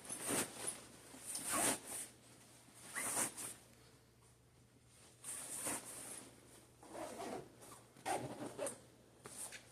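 Backpack zipper being pulled in a series of short, separate strokes, with nylon fabric handled between them.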